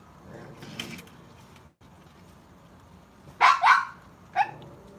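Raccoons squabbling while feeding: two loud, harsh, short snarling calls in quick succession about three and a half seconds in, then a shorter one a moment later.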